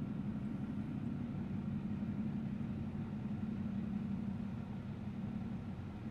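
Steady low drone of distant engines, an even hum with no change in pitch or level.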